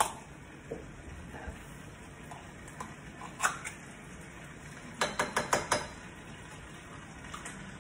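A metal food can being opened and emptied: a sharp click right at the start as the lid is popped, scattered metal clinks, then a quick run of about five taps around five seconds in as the contents are knocked out against the pan.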